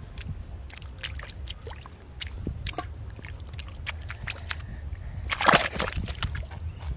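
Hands working wet mud and muddy water: squelching and sloshing with many small wet pops, and a louder slosh about five and a half seconds in as a hand comes out of the water-filled hole.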